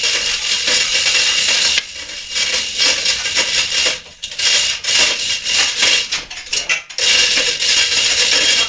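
Hand chain hoists clattering and ratcheting as a boat hull is hoisted and turned, in sped-up audio. A dense rushing noise gives way about two seconds in to a run of quick rattles and clicks, and the rushing noise returns near the end.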